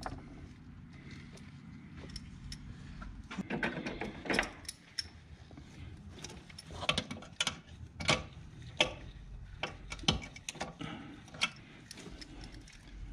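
Socket ratchet and hand tools working on bolts under a car's hood: a run of short, irregular metal clicks and knocks.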